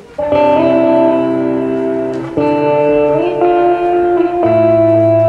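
Recorded music for a dance routine starts suddenly a moment in: held chords that change about every two seconds.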